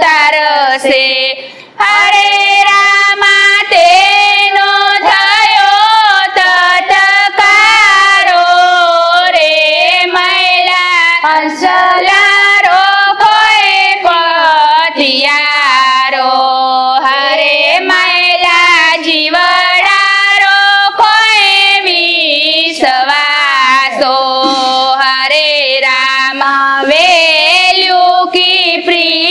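A small group of women singing a Gujarati Hindu kirtan (bhajan) together in unison, with a short pause between lines about a second and a half in.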